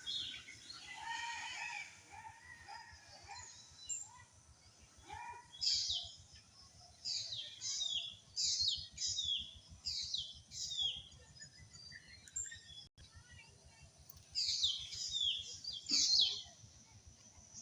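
Birds calling: runs of short, sharply falling chirps, repeated four to six at a time, with lower, softer notes in the first few seconds.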